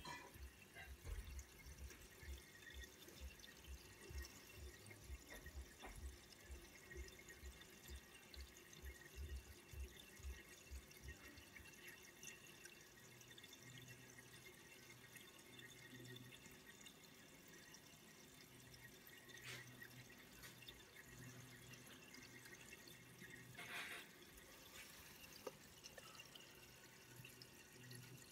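Faint trickling and dripping of water circulating in a home aquarium, with fine bubbles rising through the tank. Soft low bumps run through the first ten seconds or so.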